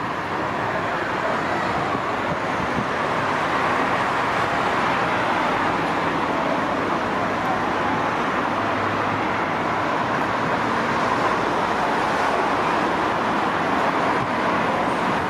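Steady rushing background noise at a constant level, with no distinct knocks or calls standing out.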